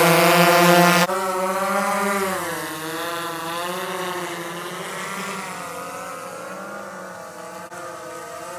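Multirotor drone's motors and propellers whining in flight, the pitch wavering up and down with throttle. Loudest in the first second while the drone hovers close, then it drops suddenly and carries on fainter as the drone flies high overhead.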